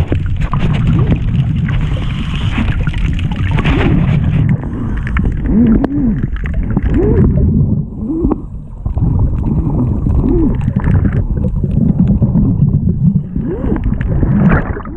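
Muffled underwater rumble of water moving around a GoPro's waterproof housing, with a scuba diver's exhaled regulator bubbles gurgling every second or two. It turns duller after about four seconds.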